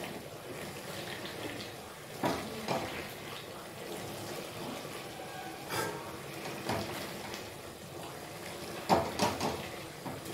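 Wooden spoon stirring a simmering giant-taro mash in a metal wok, the wet mixture bubbling, with the spoon knocking against the wok several times, loudest about nine seconds in.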